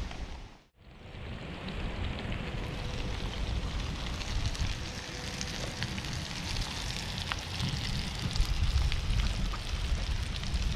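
Cornmeal-breaded snook frying in hot oil: a steady sizzle full of small crackles and pops. The sound briefly drops out about a second in.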